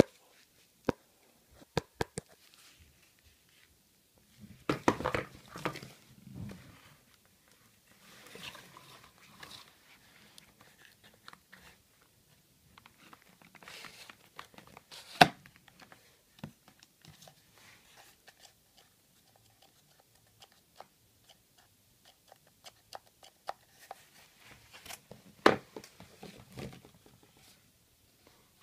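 Homemade paper toy rifle being handled: paper crinkling and rustling in several stretches, with scattered sharp clicks, the loudest about fifteen seconds in.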